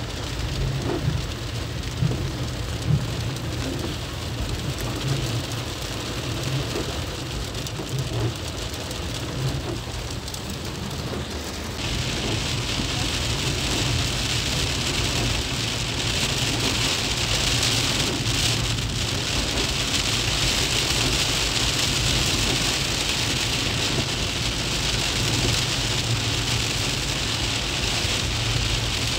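Rain on a moving car's windshield and roof, heard from inside the cabin over a steady low engine and road rumble. About twelve seconds in the hiss of the rain suddenly grows louder and stays so.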